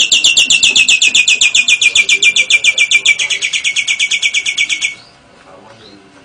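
Songbird singing a fast trill of about ten evenly repeated notes a second, its pitch sinking slightly, which stops suddenly about five seconds in.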